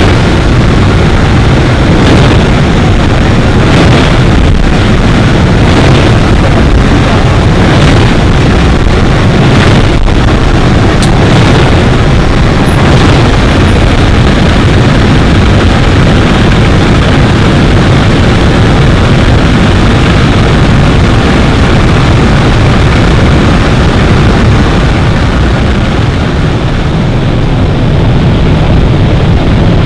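Loud, steady rush of wind through an aircraft's open jump door in flight, blended with the drone of its engines and buffeting on the microphone.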